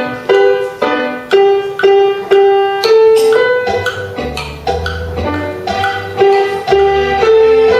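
Instrumental melody of plucked, piano-like notes, about two a second, each fading after it is struck; a low bass line comes in about four seconds in.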